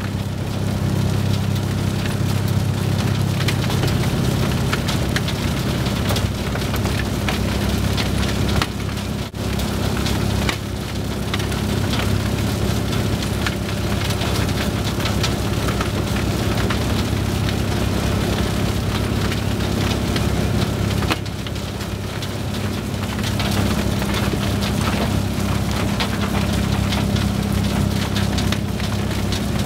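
Rockster R1100 mobile impact crusher running while crushing and screening river gravel: a steady low drone from the plant under a dense, continuous clatter of stones.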